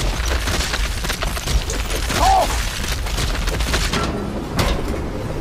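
Film sound effects of a swarm of rats engulfing a man: a dense crackling, rustling mass of scurrying over a deep rumble, with a short cry about two seconds in. About four seconds in the crackling thins out, leaving the low rumble.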